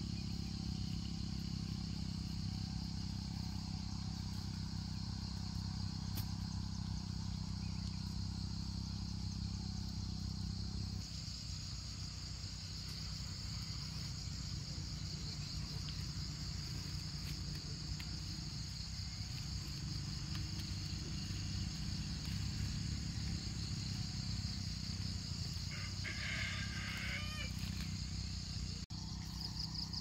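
A small engine running steadily with a low, rapidly pulsing drone that changes about eleven seconds in, over a constant high buzz of insects. A rooster crows once near the end.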